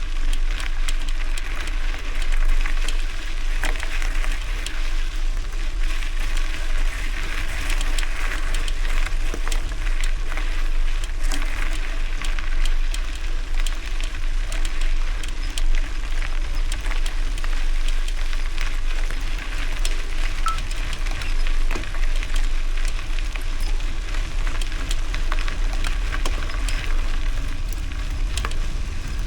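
Bicycle rolling over a gravel road: a steady crunch of tyres on loose stone with many small clicks of pinging gravel, over a constant low rumble of wind on the microphone.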